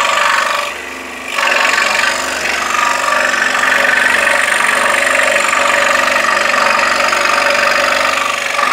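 Scroll saw running, its reciprocating blade cutting through a wooden board along a pattern line with a steady buzzing rasp. It drops briefly about a second in, then picks up again.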